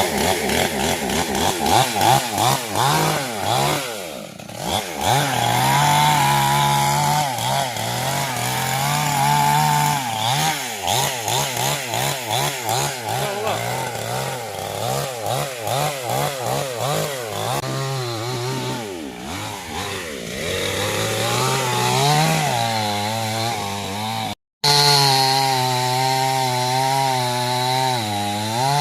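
Two-stroke chainsaw running under load as it cuts wood, its engine note repeatedly dipping as the chain bites and rising again. The sound drops out abruptly for a moment near the end, then the saw runs on.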